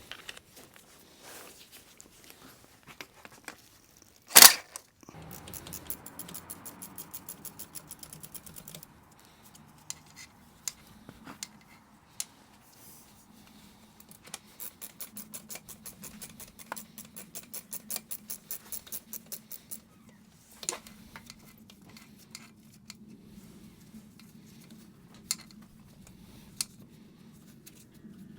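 Hand ratchet clicking in two long, fast, even runs as 10 mm bolts are undone, with one loud sharp knock about four seconds in and scattered single metal clinks.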